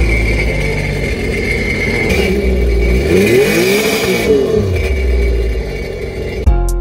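Sea-Doo GTR's Rotax engine running on its trailer, its first start on a new battery, fed by a garden hose with water spraying out the stern. It idles, is revved up and back down around the middle, then settles again. Music with drum hits cuts in near the end.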